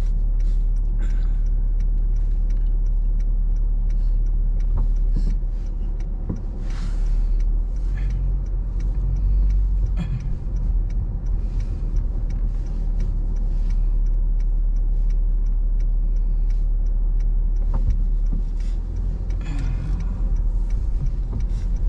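Steady low rumble of a car's engine and road noise heard from inside the cabin while driving, with faint scattered ticks.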